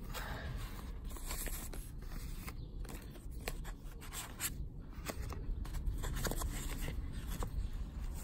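Paper cards and a cloth handled and lifted out of a cardboard box with a foam insert: light rustling and scraping with scattered small clicks, over a steady low rumble of wind on the microphone.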